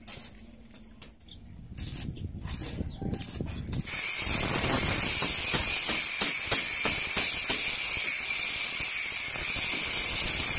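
Angle grinder cutting into a steel bar: a loud, steady grinding that starts suddenly about four seconds in, after a few seconds of quieter clicks and knocks.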